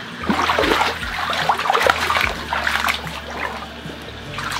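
Water splashing irregularly as a Rottweiler paws and wades in a shallow foldable dog pool, busiest in the first three seconds and easing off toward the end.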